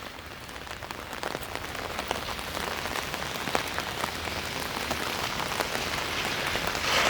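Rain falling steadily, with many small drop ticks close to the microphone. It grows gradually louder.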